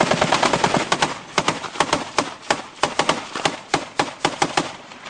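Close gunfire: a dense run of rapid shots, then single sharp cracks coming about four a second, stopping near the end.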